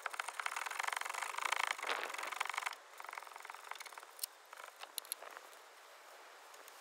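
Ratchet wrench clicking rapidly for the first few seconds while undoing a rear brake caliper slide pin bolt, then a few scattered metallic clicks.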